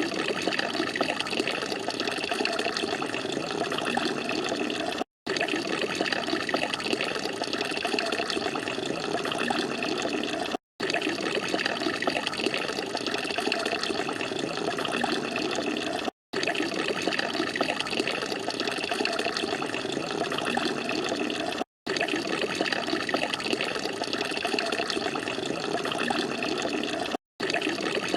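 Garden fountain water splashing and falling in a steady rush, broken by brief silent gaps every five or six seconds.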